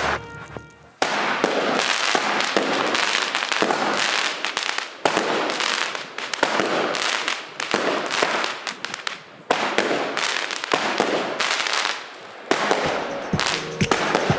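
Consumer fireworks cake firing, starting about a second in: a rapid run of launches and aerial bursts with dense crackling. Near the end come sharper, separate pops.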